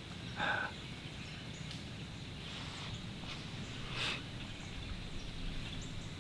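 Quiet woodland background with faint, scattered high bird chirps, and two soft breathy sounds, one just after the start and one about four seconds in.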